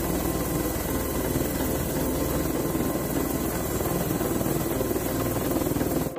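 Airbus H145 helicopter's twin turboshaft engines running as the main rotor turns slowly on the ground: a steady turbine whine over a loud rushing noise.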